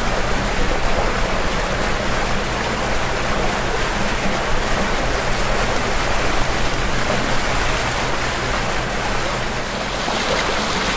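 Steady rushing of water and wind aboard a sailing catamaran, with a low steady hum underneath.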